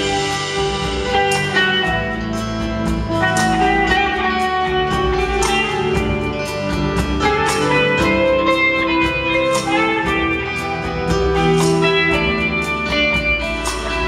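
Live band playing an instrumental break: electric guitar picking the melody over bass, with a steady beat of sharp strokes.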